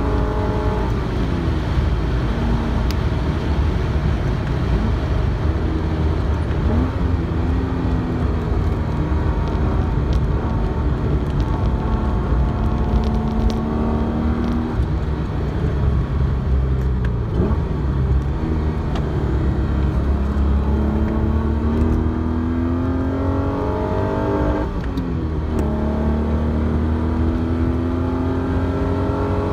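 Alfa Romeo GTV6's Busso V6 engine pulling hard on track, heard from inside the cabin. The engine note climbs steadily and drops back sharply at each upshift, several times through the lap.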